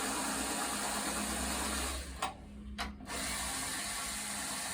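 Steady running of a power tool or shop machine. About two seconds in the sound drops away for under a second, with a click at the start and end of the drop, then runs on.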